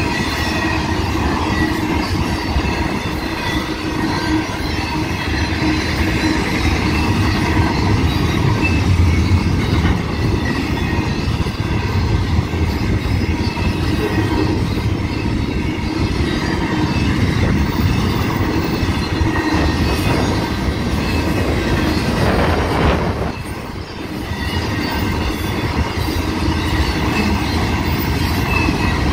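Union Pacific double-stack intermodal freight cars rolling past: a steady rumble and clatter of wheels on rail, with a continuous high-pitched squeal from the wheels. The sound dips briefly near the end.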